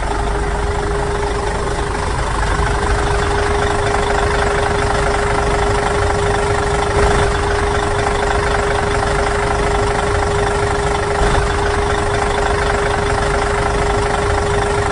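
A motor running steadily with a constant hum and no change in speed.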